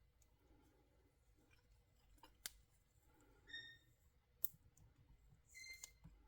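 Faint handling of NSI Industries Warrior Wrap electrical tape peeling off the roll as it is pulled taut and wound around a power cord: two short squeaks of the tape unwinding and a couple of small clicks.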